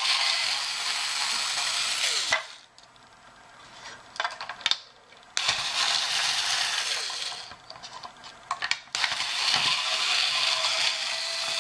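Cordless electric screwdriver whirring in three runs of about two seconds each as it backs a screw out of the clock's plastic chassis, with small clicks between runs.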